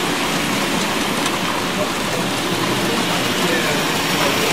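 Model trains running along the layout's track, a steady rushing noise, with a murmur of voices from the exhibition crowd.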